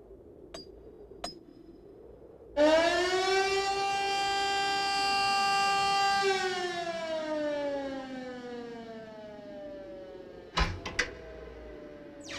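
Rotary air-raid siren winding up quickly to a steady wail, holding for a few seconds, then slowly winding down with falling pitch as the rotor coasts to a stop. Two light metallic clicks come before it starts, and two sharp knocks sound near the end.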